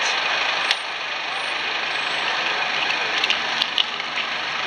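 Busy city street traffic: a steady hiss of passing and idling vehicles, with a sharp click under a second in and a few more short clicks in the second half.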